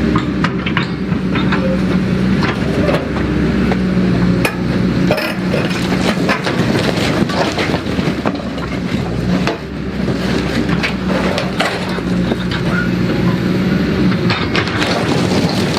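Track hoe (tracked excavator) demolishing a building: its diesel engine runs steadily under load while debris cracks, crunches and clinks repeatedly as the structure is broken down.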